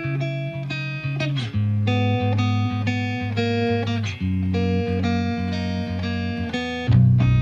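Background music: sustained chords that change every few seconds, getting louder with a deeper bass near the end.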